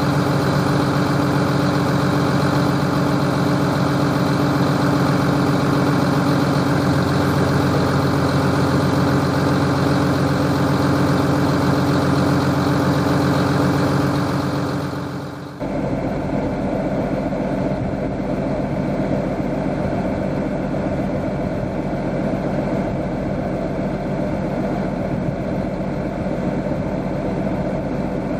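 John Deere 850K dozer's diesel engine idling steadily. About halfway through the sound changes abruptly to a quieter steady idle with more deep rumble.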